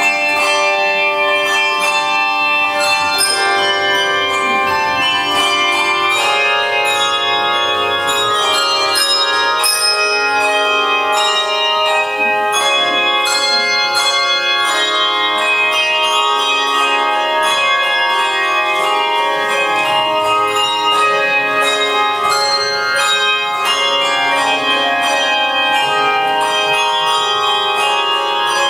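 Handbell choir playing: many tuned handbells struck in chords and melody lines, their notes ringing on and overlapping.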